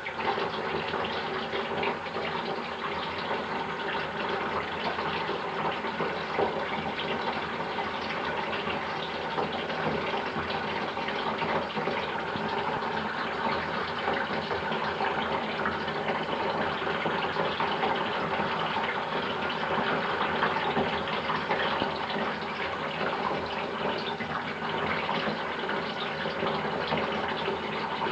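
Water running steadily in a continuous gushing stream.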